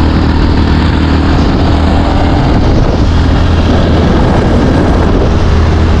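Motorcycle running steadily along a road at speed, a low engine hum under a heavy, even rush of wind on the microphone.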